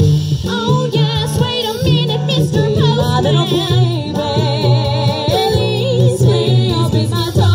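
A live vocal group singing together in close harmony, women's and men's voices at once with vibrato on held notes, over steady low bass notes.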